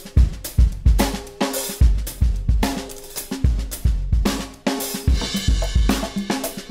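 Recorded drum kit playing a steady groove of kick drum, snare and cymbals. It is heard first as the dry, uncompressed signal, then switches to versions with about 10 dB of gain reduction, one from a single high-ratio compressor and the other from several compressors in series.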